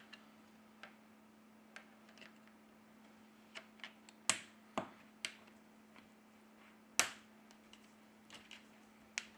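Light, scattered clicks and taps of a Redmi Note 9's back cover being set on and pressed into place around the phone's edges, with two sharper clicks about four and seven seconds in.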